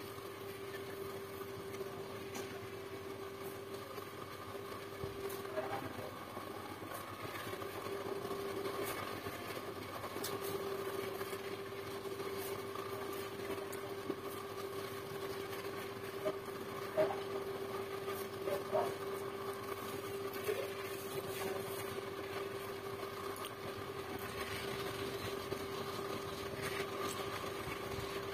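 A steady machine hum holding one even tone, with faint sounds of someone eating by hand: chewing and a few small clicks, mostly in the second half.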